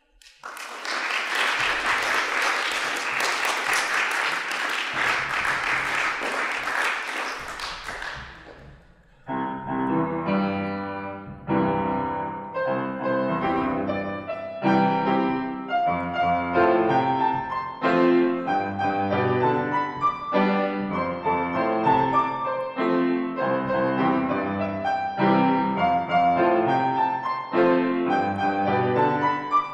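Audience applause for about eight seconds, dying away, then a piano starts playing a piece with a steady run of notes.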